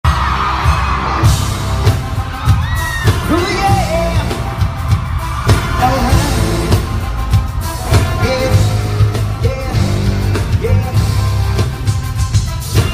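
Live pop song played loud through a concert sound system: a singer's voice over a heavy bass beat.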